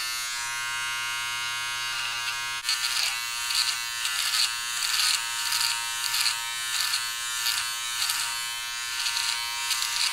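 Taurus mini electric shaver running with a steady buzz. From about two and a half seconds in, its pop-up trimmer is worked against chin stubble, and the buzz pulses about twice a second with each stroke.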